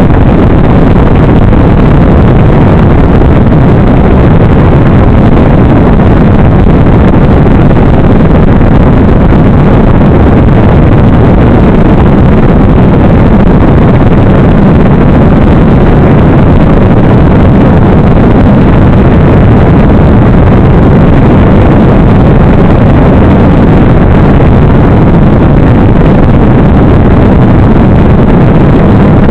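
Model airplane's motor and spinning propeller with wind rushing over the onboard camera's microphone in flight: a steady, very loud rushing drone that does not let up.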